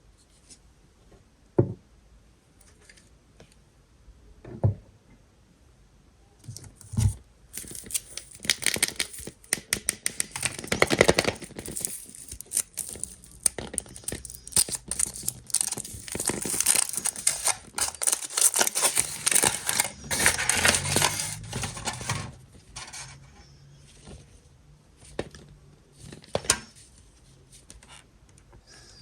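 Foil wrapper of a Kinder Maxi chocolate egg being crinkled and torn off: a few light knocks first, then a long stretch of dense crinkling and tearing that thins to scattered clicks near the end.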